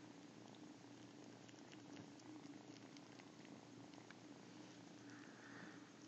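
A cat snoring softly and steadily in its sleep.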